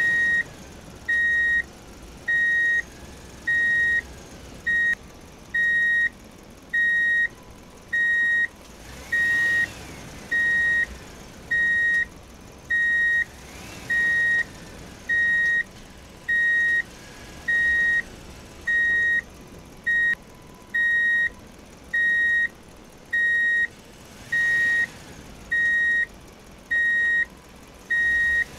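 Electronic warning beeper of a toy RC construction set, a steady high beep sounding about once a second, each beep about half a second long. A few faint rising-and-falling whines sound under it.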